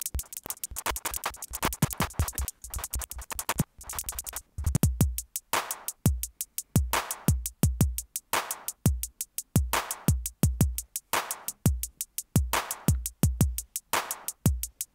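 A browser drum machine looping sampled hi-hat, clap and bass drum sounds. At first it plays a fast run of hi-hat ticks. After a short break about four seconds in, it plays a beat of bass drum thumps and claps over the hi-hats.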